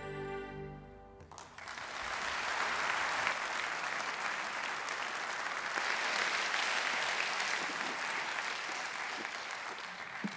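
The closing chord of a live band with violin dies away, and about a second in an audience breaks into applause that carries on.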